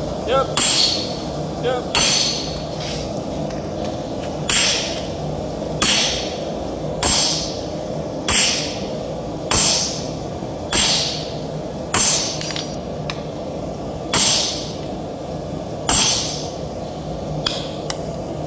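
A blacksmith's set hammer being struck as it is held on red-hot steel on an anvil, smoothing out fuller marks on a Dane axe blank. There is a sharp, ringing metal blow about every 1.2 seconds over a steady background noise.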